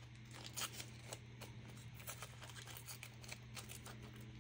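Faint rustling and scattered small clicks of tissue paper being handled, over a low steady hum.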